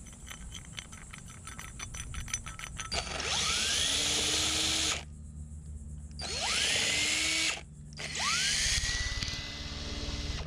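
Power drill boring a spade bit through an HDPE cutting board. After a few seconds of light ticking it runs in three bursts, its motor whine rising as it spins up each time.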